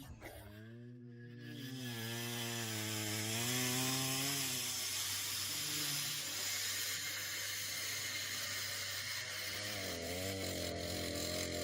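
Engine-driven wood-cutting machinery running under load, its engine note wavering up and down, over a steady hiss of wood being cut.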